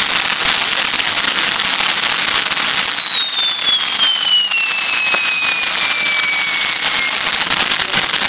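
Several ground fountain fireworks spraying sparks: a loud, steady, dense hiss full of fine crackling. From about three seconds in, a thin whistle slides slowly down in pitch for about four seconds.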